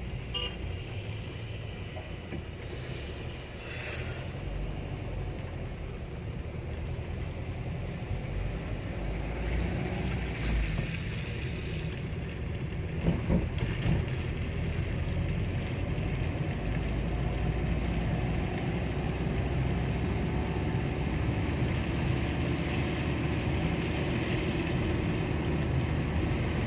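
Car interior while driving slowly: steady engine and road noise, with tyres running on a wet road. There are a couple of brief knocks about halfway through.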